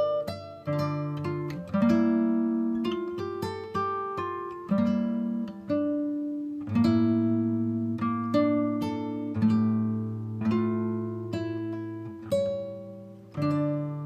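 Background music of plucked acoustic guitar, a steady run of picked notes and chords that each ring and fade.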